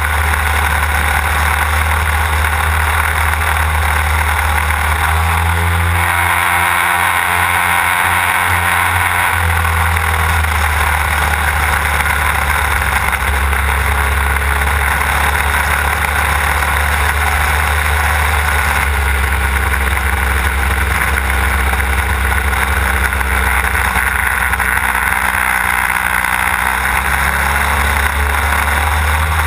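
Desert Aircraft DA-150 twin-cylinder two-stroke gas engine of a large-scale model aerobatic plane running in flight, heard close up with wind rushing over the microphone. Its note changes about a fifth of the way in and again past the middle as the throttle is moved.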